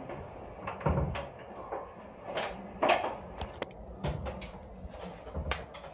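Irregular knocks and clicks of handling, several short sharp taps and a few low thuds spread unevenly, getting fainter toward the end.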